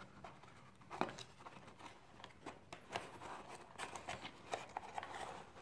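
Faint handling noise as a plastic power adapter and its cable are pulled out of a cardboard box: scattered light clicks and rustles of plastic against cardboard.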